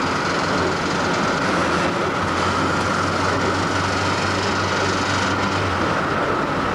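Steady engine and road noise heard from inside the cabin of a Ford Escort RS2000 on the move, with a low engine hum that grows stronger for a few seconds in the middle.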